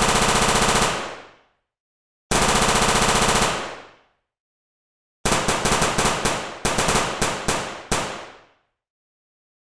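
Gunshot sound effects: two one-second bursts of rapid automatic fire, each dying away in a short echo. Then comes a run of about ten separate shots fired in quick succession.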